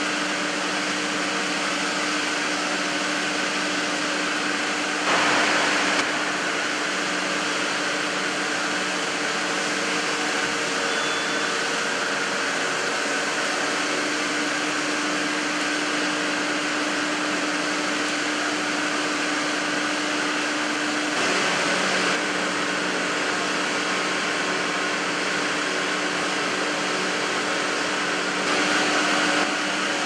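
Steady hum and hiss of a running cable-sheathing production line's motors and drives, with a few steady tones. It swells briefly three times: about five seconds in, around twenty-one seconds, and near the end.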